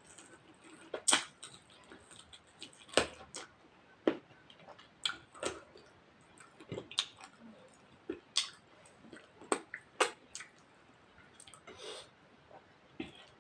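Close-miked eating of rice and mutton curry: irregular wet mouth smacks and chewing clicks.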